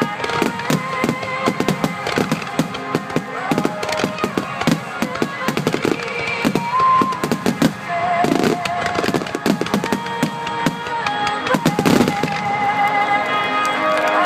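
Aerial fireworks going off in rapid succession, a dense run of bangs and crackles, with heavier booms about eight and twelve seconds in. Music plays underneath, coming forward near the end as the bursts thin out.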